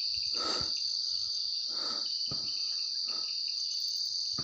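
A chorus of night insects: a steady, shrill, high-pitched trill with no break. A few soft, brief shuffling noises sound under it.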